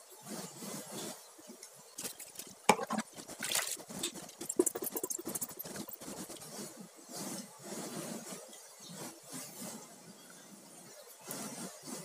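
Soaked basmati rice poured from a steel bowl into a pot of hot stock: rice and water sliding and splashing in, with sharp clinks and scrapes of the metal bowl against the pot, thickest a few seconds in, and a few more clinks near the end.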